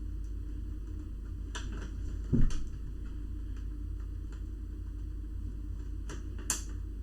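A few faint plastic clicks as a laptop's plastic case is pried at along clips that are still holding, over a steady low hum.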